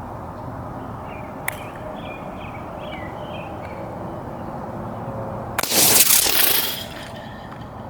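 Pierced aerosol spray paint can bursting: a sudden loud blast and rushing hiss of escaping propellant lasting about a second, a little over five seconds in, after a single sharp click about a second and a half in.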